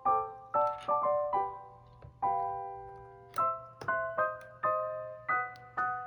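Background piano music: a gentle melody of single notes and chords, struck about twice a second and each fading away, with one longer held chord near the middle.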